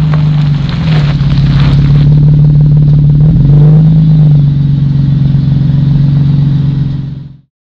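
Car exhaust running close up with a steady low drone; the pitch drops slightly about a second in and rises briefly in the middle, then the sound cuts off suddenly near the end.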